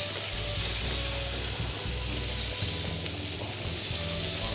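Pieces of salmon sizzling as they fry in a hot pan, a steady hiss.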